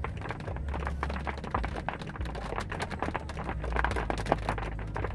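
Raindrops tapping irregularly on a car, many small clicks close together, over a low rumble.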